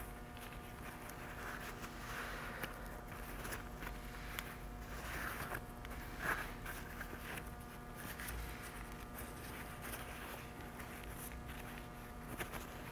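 Faint rustling and rubbing of a shop paper towel wiping old grease out of a suspension linkage rocker's bearing bore, with small handling ticks and one light knock about six seconds in, over a steady low hum.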